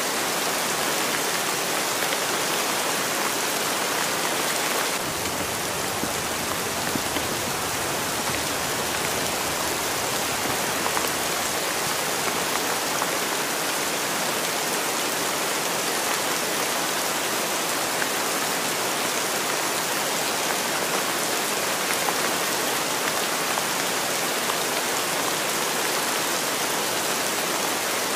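Steady rain ambience: a continuous, even hiss of rain falling, with no change in level.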